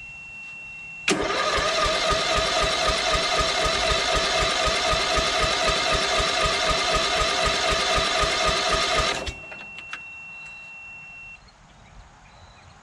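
Electric starter cranking a lawn tractor's flathead engine fast and evenly for about eight seconds without it firing, then stopping. The owner puts the failure to start down to almost no compression.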